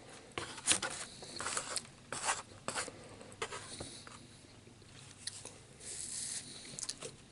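Close-up eating noises while a tamale dinner is being eaten: irregular mouth clicks, crunching and scraping sounds in two spells, the first lasting a couple of seconds near the start and a shorter one near the end.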